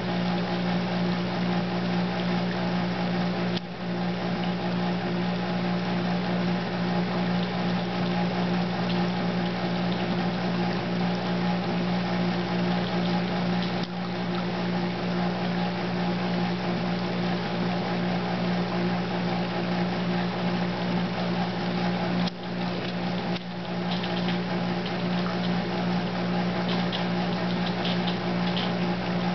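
Steady machine hum over a rushing hiss, unchanging throughout and dipping briefly a few times.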